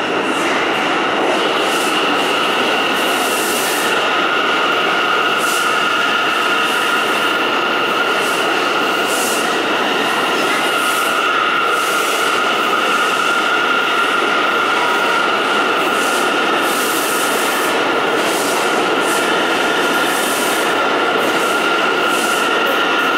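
Bombardier R179 subway train arriving along an underground platform: steady rumbling wheel-and-rail noise with a continuous high squeal from the wheels.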